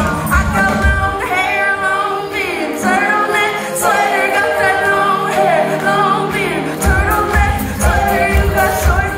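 Live pop band with a female lead singer, heard loud through a phone microphone from the audience. The bass and drums drop out about a second in, leaving the voice over lighter accompaniment, and come back in near the end.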